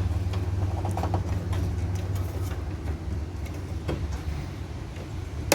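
Small handling clicks and rattles as a horn's electrical connector is worked onto its terminal, ending in one sharp click near the end as the plug snaps home, over a steady low hum.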